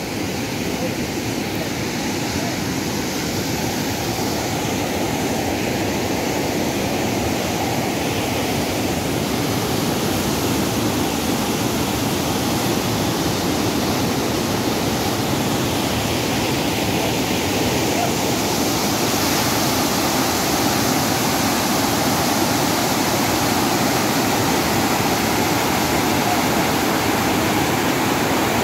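A mountain stream rushing and cascading over rocks in a steady roar of white water, growing a little louder past the middle.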